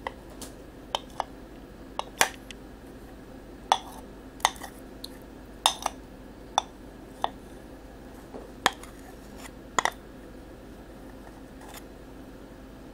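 A spoon clinking and scraping against a small bowl while melted chocolate is scraped out of it: sharp, irregular clinks, a dozen or more, over the first ten seconds, then only a steady low hum.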